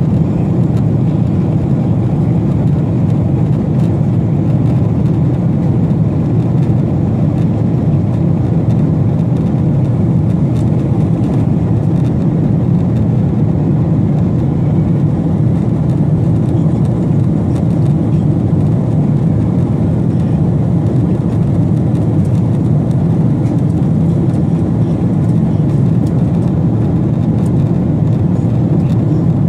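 Steady cabin noise of a jet airliner in flight: the even, low rumble of the engines and airflow, unchanging throughout.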